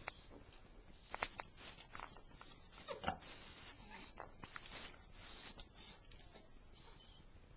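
Nursing beagle puppies squeaking: a rapid string of short, high squeaks between about one and six and a half seconds in, with faint shuffling and clicks as they jostle at the teats.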